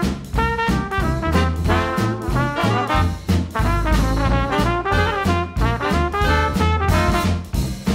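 Upbeat swing-style background music with brass over a pulsing bass line.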